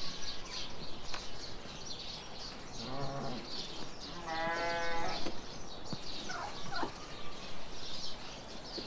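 Livestock bleating three times, the longest and loudest call about four seconds in, with small birds chirping throughout.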